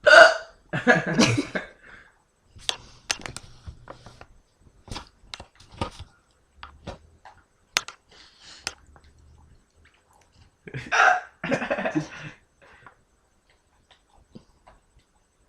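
A person hiccuping: two loud hiccups at the start and two more about eleven seconds in, with faint small clicks between.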